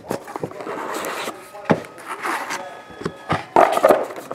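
Trading cards and clear plastic card holders being handled: cards riffled and slid against each other and tapped down on a padded table mat, a string of light clicks and rustles, busiest near the end.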